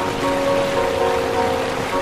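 Heavy rain falling in a steady hiss, with slow background music of soft, held notes laid over it.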